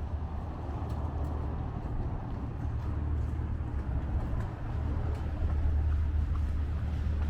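Wind buffeting the microphone as a steady low rumble, over outdoor city street noise.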